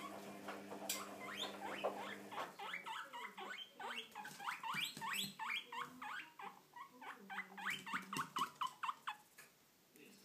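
Guinea pigs wheeking: a rapid run of short, high squeaks that each rise in pitch, about three or four a second, stopping shortly before the end.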